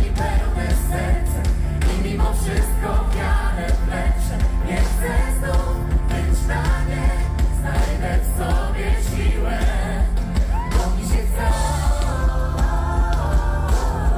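Live pop band playing a song, with a steady beat, a strong low end and several voices singing together.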